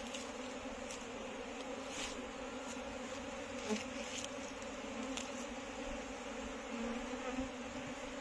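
A swarm of Indian honey bees (Apis cerana indica) buzzing: a steady, dense hum of many wings, with a few faint ticks.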